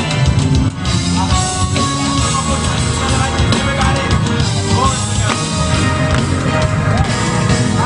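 A live gospel band playing loud, continuous music with a steady beat, led by drums and bass.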